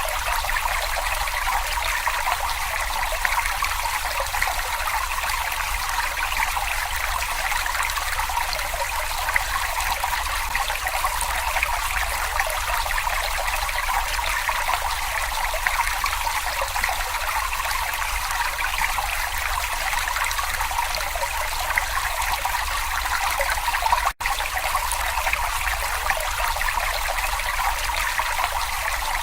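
Brook water babbling and trickling steadily, with one very brief dropout near the end.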